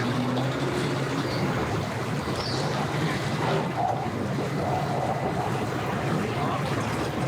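Steady boat-ramp background: a boat motor running low, with water and wind noise on the microphone.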